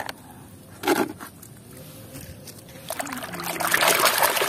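A few light knocks of plastic toys being handled, then from about three seconds in a hand splashing and sloshing a plastic toy in muddy water, growing louder.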